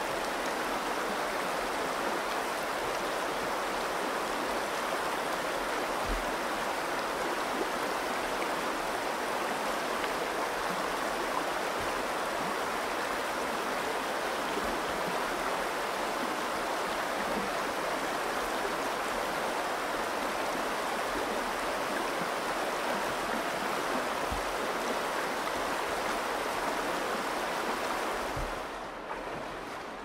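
Shallow Virgin River flowing over stones with a steady rush. About a second and a half before the end it becomes quieter and duller.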